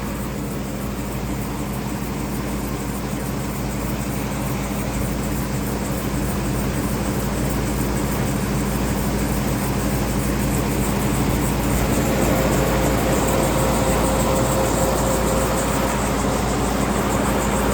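Tractor engine running steadily, driving a grinder mixer's unloading auger through the PTO as ground corn is emptied out. A higher steady whine joins about twelve seconds in.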